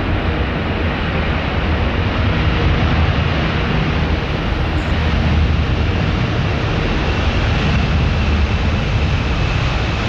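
Royal Air Force Boeing C-17 Globemaster III's four Pratt & Whitney F117 turbofans at takeoff thrust during the takeoff roll: a loud, steady jet roar, with a thin whine coming in over it in the second half.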